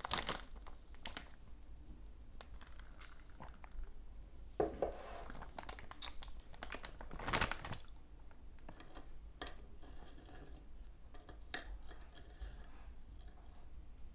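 Crunchy corn snacks being chewed close to the microphone: scattered crackling crunches, with a few louder bites about five and seven seconds in.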